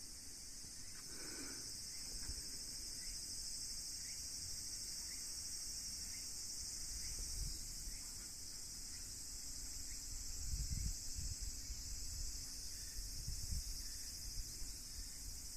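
A steady, high-pitched drone of summer insects, unbroken throughout, with a few irregular low rumbles in the second half.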